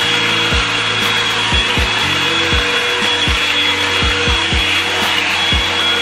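Revlon One-Step hot air brush running, blowing steadily with a high motor whine as it is drawn through long hair. Deep bass kicks of a background music beat sound underneath.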